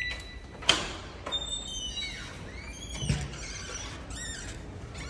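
A door latch clicks sharply, followed by squealing creaks and, about three seconds in, a dull thump as the door shuts.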